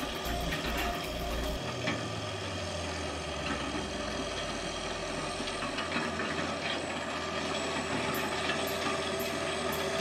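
Farm tractor engine running steadily under load while towing a field implement, with a mechanical clatter of machinery over it.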